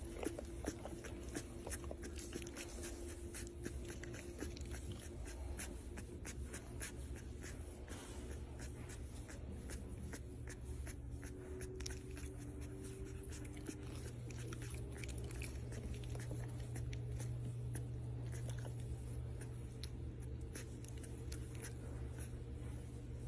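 Newborn Labrador puppy's mouth smacking and making irregular small clicks as it stirs in its sleep, over a steady low hum.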